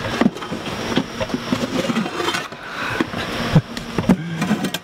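Irregular knocks and taps of a goat's hooves shifting and stepping on a wooden plank milking stand, over a steady low hum.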